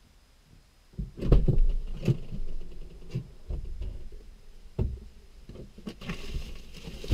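SUV rear liftgate opening about a second in, followed by scattered knocks, thumps and rustling as stretched fur pelts are set into the cargo area, heard from inside the vehicle.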